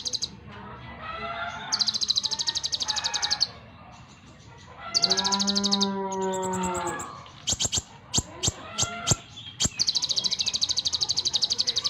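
Kolibri ninja sunbird singing a varied song: rapid, high trills in three bursts of one to two seconds, with a lower, rising-and-falling call in the middle and a quick series of sharp chips.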